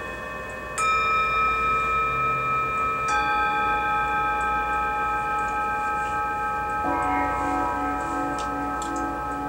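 Meditation bells struck three times, a few seconds apart, each strike ringing on in several long steady tones that overlap the last. From about seven seconds in, a lower tone wavers in a slow pulse.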